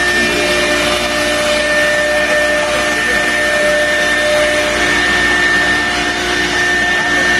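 Wood CNC router running, a steady high whine from the spindle over a loud, even noise.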